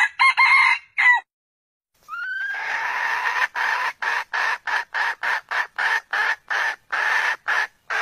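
Red junglefowl calling: a short pitched call at the start, then from about two seconds a call that rises into a long, harsh call. This call is chopped into quick, even pulses, about three a second, with dead silence between them.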